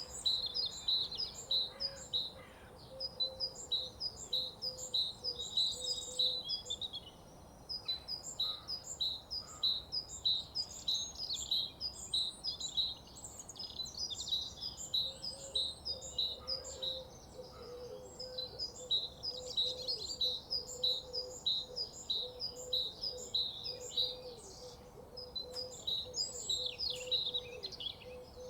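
Morning birdsong: many small birds chirping and singing together in a dense, continuous chatter of rapid high notes. A fainter low, wavering tone runs underneath for the first few seconds and again through the second half.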